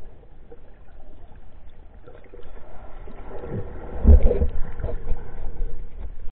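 Muffled underwater noise through a submerged camera: water movement with scattered bumps, and a cluster of heavy low thumps about four seconds in.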